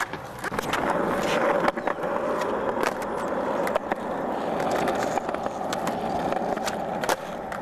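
Skateboard wheels rolling on rough concrete: a steady grinding rumble with sharp clicks now and then.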